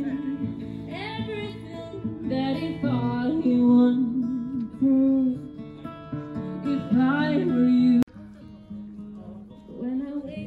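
A woman singing live to her own acoustic guitar. The level drops abruptly about eight seconds in, then the song continues more quietly.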